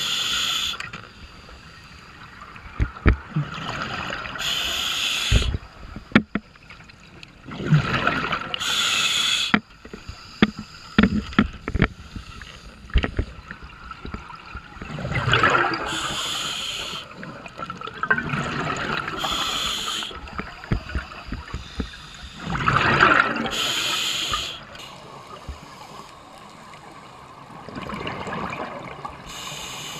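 Scuba diver breathing through a regulator underwater: bursts of exhaled bubbles gurgle past the camera housing every four to six seconds. A cluster of sharp clicks and knocks comes in the middle.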